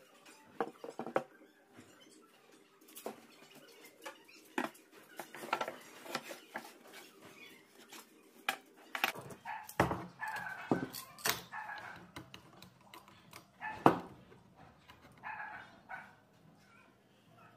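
Pine boards knocked, shifted and slid on a plywood workbench as they are laid out side by side, with scattered sharp wooden knocks, the loudest a little after halfway. An animal calls several times in the background.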